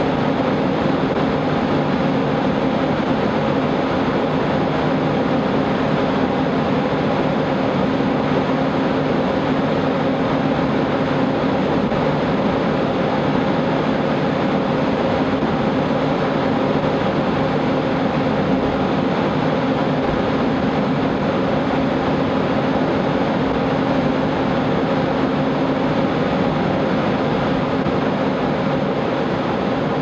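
Wind tunnel fan running in a high-wind test: a steady, loud rush of air with a constant hum.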